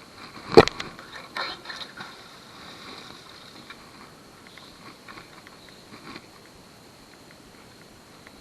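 A single sharp knock from magnet-fishing gear and finds being handled, about half a second in. A cluster of lighter clicks and scraping follows over the next second or so, then a few faint clicks.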